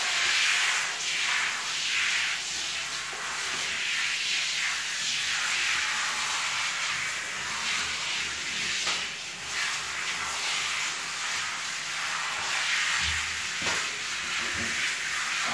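Handheld shower head spraying water onto a wet dog's coat: a steady hiss that shifts as the spray moves over the fur, with a few dull thumps near the end.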